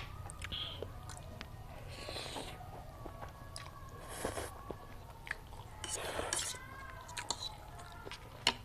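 Close-miked eating: a person chewing food, with scattered clicks of cutlery against a plate and a few short bursts of mouth noise.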